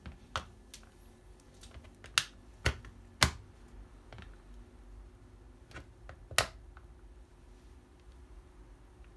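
Plastic pocket calculator clicking and snapping under the metal spikes of track-and-field spike shoes as weight presses and shifts on it. The sharp clicks come singly, the loudest three close together a couple of seconds in and another past six seconds.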